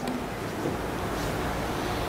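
Steady rushing noise with a low rumble underneath; no distinct events.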